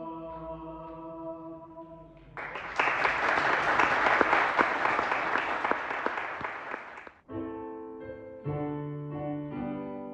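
A vocal quartet's held final chord fades out, then the audience applauds for about five seconds, then a keyboard starts playing chords.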